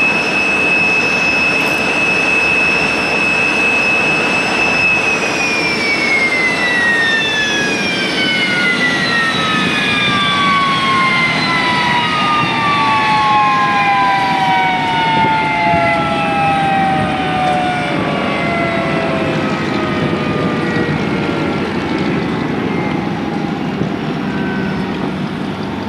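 Fouga Magister's twin Turbomeca Marboré turbojets shutting down. A steady high whine splits as one engine starts spooling down about five seconds in and the second follows about two seconds later. The two whines fall in pitch side by side over the next fifteen seconds, above a steady rushing noise.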